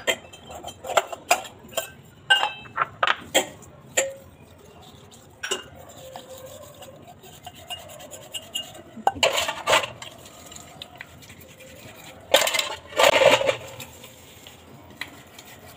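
Brass and copper puja vessels clinking and knocking against each other as they are picked up and handled, some strikes ringing briefly. Quick separate clinks come in the first few seconds, and two longer clatters come about nine and twelve seconds in.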